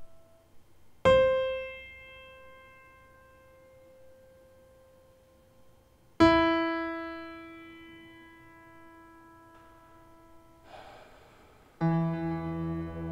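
Film score: two single piano notes, the second lower than the first, struck about five seconds apart and each left to ring and fade away. Near the end a dense sustained chord with a deep low drone comes in and holds.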